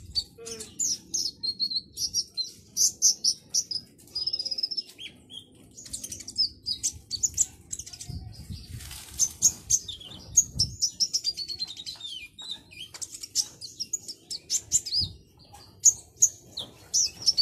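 A caged kolibri ninja sunbird singing in full, aggressive display song, a fast unbroken stream of high-pitched chirps, twitters and short trills.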